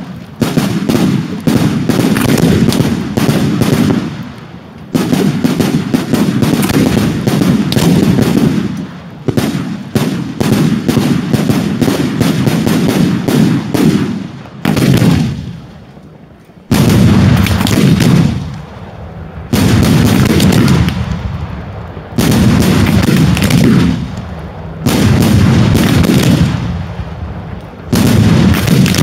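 Daytime fireworks fired from the ground: rapid, dense volleys of loud bangs and crackling reports in runs of a few seconds, broken by short lulls, the longest about halfway through.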